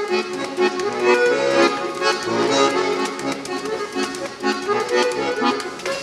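Accordion playing a lively folk-dance tune, a run of quick notes over a steady accompaniment.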